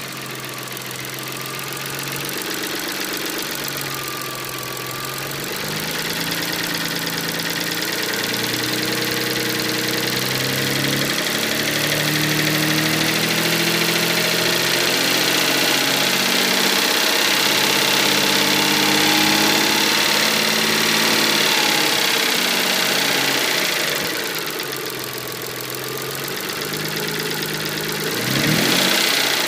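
Mitsubishi 3000GT's V6 engine running with a mechanical noise. It is held at higher revs through the middle, drops back toward idle, then gets a short rev near the end. The noise turned out to be a bent number-one connecting rod letting the piston skirt hit the crankshaft counterweights.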